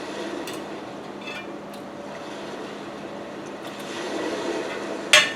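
Quiet eating sounds with a few small clicks, and one sharp clink near the end, over a steady low background hum.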